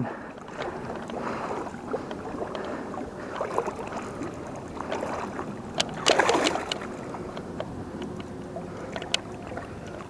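River water sloshing and splashing as a wading angler's legs and hand churn through it and a hooked common carp thrashes at the surface. There is a bigger splash about six seconds in.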